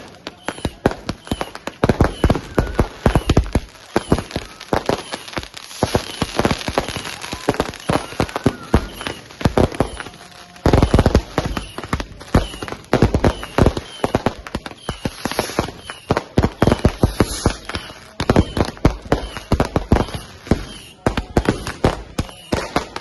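Fireworks and firecrackers going off in rapid, irregular volleys of sharp bangs and crackles, with a few brief whistling glides among them.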